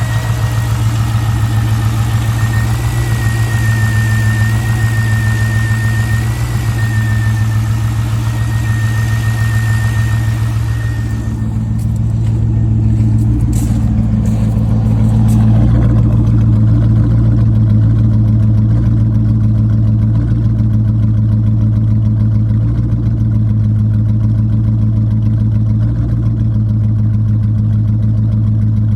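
C5 Corvette's V8 engine idling steadily, the rough idle its owner is showing. A thin, high, steady whine rides over it until about eleven seconds in, when it stops and the sound turns duller, followed by a few light clicks.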